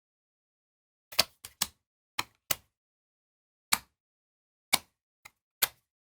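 Sharp, irregular clicks and taps of trading cards being handled and set down on a table, about nine in a few seconds, some in quick pairs.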